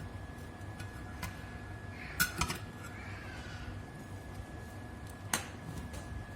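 A few sharp clinks of a metal utensil against dishware, one about a second in, a quick cluster around two seconds in and one more past five seconds, over a faint steady hum.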